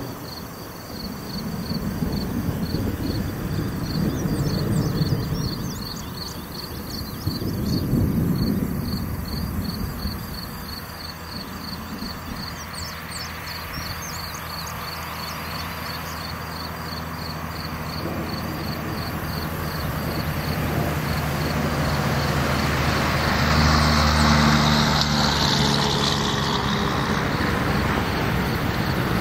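Outdoor storm ambience: thunder rumbling low twice in the first ten seconds, over a steady high pulsing chirp of insects. Near the end a vehicle engine approaches and passes, the loudest moment.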